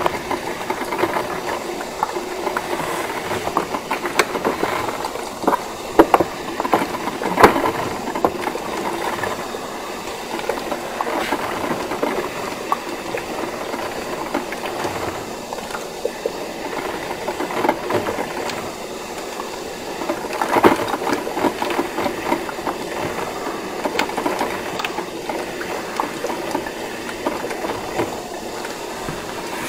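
Krups 985 combination espresso and drip coffee maker running as it heats up with both sides switched on: a steady rattling noise with irregular clicks and pops, the loudest around a quarter of the way in and again about two-thirds in.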